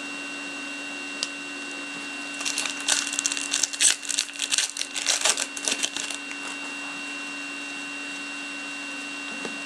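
Foil wrapper of an SPX hockey card pack crinkling and tearing as it is ripped open, a dense run of sharp crackles from about two and a half to six seconds in, over a steady electrical hum.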